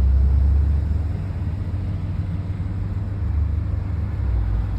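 Road and engine noise inside a moving car's cabin: a steady low rumble that eases about a second in and swells again near the end.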